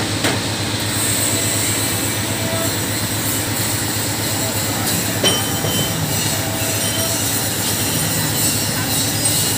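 Electric bread slicer running, its motor and blade frame making a steady rattling hum. A sharp click sounds about five seconds in.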